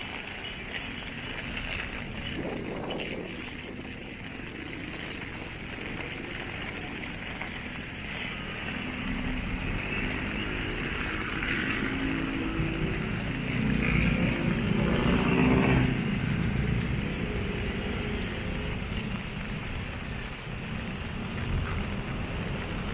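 Traffic on a rain-wet street: a steady hiss of rain and tyres, with a vehicle's engine growing louder from about a third of the way in, loudest near the middle, then easing off.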